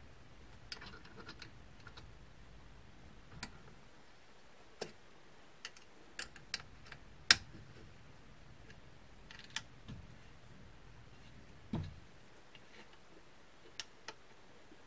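Scattered light clicks and ticks of a thin metal key working the clamp screws on the aluminium router mount, irregular and unhurried, with the sharpest click a little past seven seconds in.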